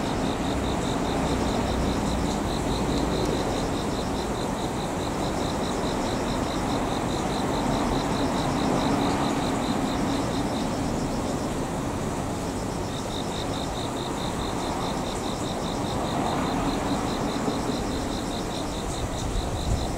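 Insects chirping in a rapid, even pulsing trill that pauses for about two seconds midway. Beneath it runs a steady low rumble from a slow-moving Kumoya 143 electric service car.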